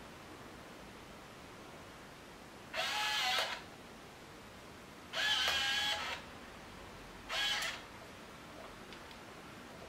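Fuji DL-500 Wide compact 35mm film camera's built-in electric motor whirring in three short runs, the middle one the longest at about a second.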